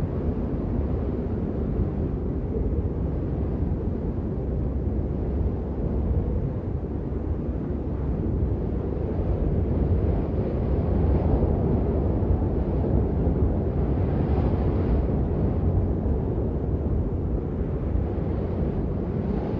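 Blizzard wind blowing hard and steadily, a deep rushing noise that swells into a stronger gust about halfway through.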